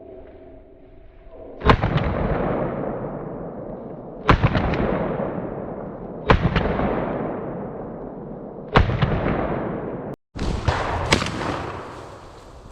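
Shotgun shots fired in the open: four sharp reports about two to two and a half seconds apart, each followed by a long echo that rolls away. After a brief break in the sound, one or two more shots follow.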